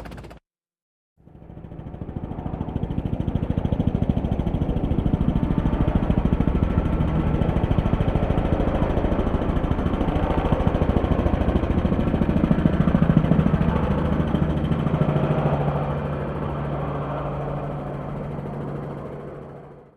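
Helicopter in flight, its rotor blades chopping rapidly over the engine's steady noise. It fades in about a second in, holds steady, eases off a little in the last few seconds and cuts off at the end.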